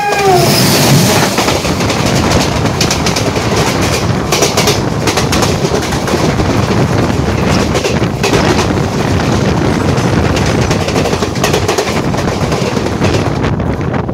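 A passenger train passing on the next track: a steady, loud rush of wheels on rail and rattling coaches with rhythmic clacks over the rail joints, heard from the doorway of a moving train. In the first half-second the tail of a train horn slides down in pitch.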